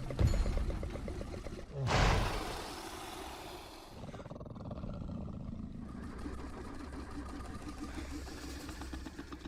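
Scorpius Rex hybrid dinosaur creature sound effect: a rattling growl, a short loud roar about two seconds in, then a long, lower rumbling growl that cuts off at the end.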